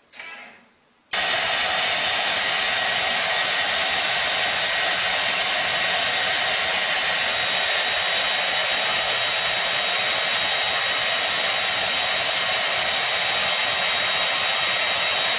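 Handheld hair dryer running steadily: an even rushing noise with a faint high whine, switching in abruptly about a second in.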